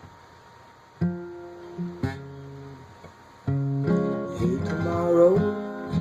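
Acoustic guitar strummed: single chords ring out about one, two and three and a half seconds in, then steady strumming follows, with a voice starting to sing over it near the end.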